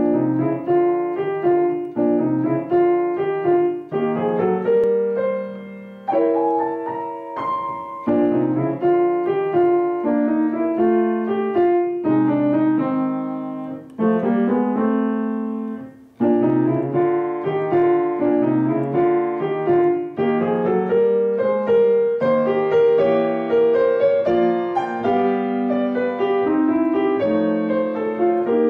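Kawai upright piano played with both hands: an easy rag-style piece in the middle register, moving in short phrases with brief breaths between them.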